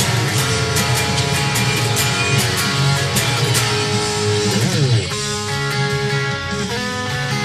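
Guitar strumming chords in quick strokes, then a downward slide in pitch about four and a half seconds in, after which a chord is left ringing.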